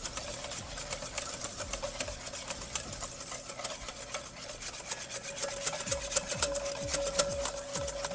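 Wire whisk beating egg yolks in a stainless steel bowl, the wires scraping and clicking against the metal in rapid, even strokes. The yolks have thickened to the ribbon stage of a hollandaise, just before the butter goes in.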